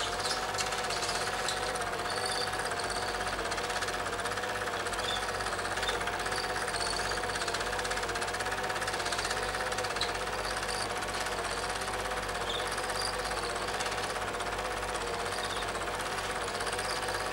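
A steady, rapid mechanical clatter with a hum under it, unchanging throughout.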